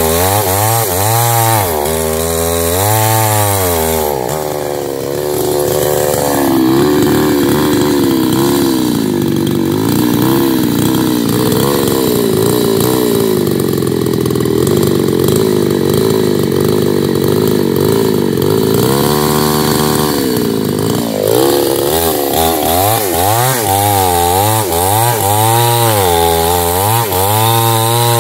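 Small chainsaw cutting into the trunk of a male oil palm. The engine surges up and down in pitch again and again, with a steadier high run through the middle stretch before the surging returns near the end.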